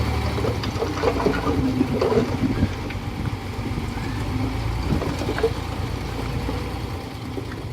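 Heavy construction machine's diesel engine running steadily, with scattered short knocks and clanks over the first few seconds. The low engine sound eases slightly near the end.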